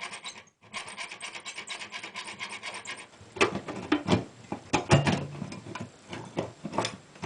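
Metal-cutting saw blade rasping back and forth through a steel electrical-box mounting rail: the final part of the cut, with the bar braced against vibration. Quick, even strokes give way at about three seconds to slower, louder strokes.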